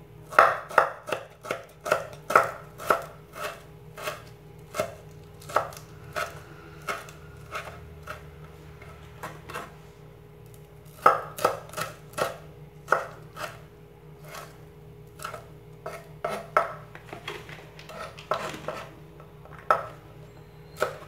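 Cleaver chopping shallots and red chillies on a wooden cutting board: sharp knocks of the blade on the board in irregular runs, with short pauses between them.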